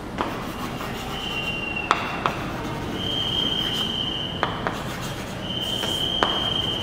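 Chalk writing on a chalkboard: the chalk squeaks three times in a high steady tone, the last two about a second and a half each, with sharp taps of the chalk against the board between the strokes.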